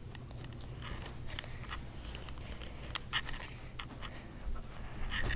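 Scattered soft clicks and rustles close to a handheld phone's microphone, from a small dog moving against it, mixed with handling noise.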